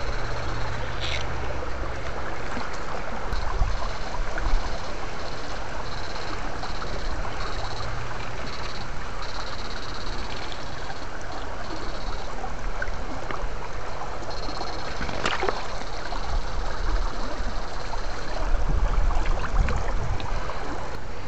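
Shallow stream water sloshing and splashing around an electrofishing rig's two probes, with a high-pitched electronic whine cutting in and out in short spells as the shocker is pulsed.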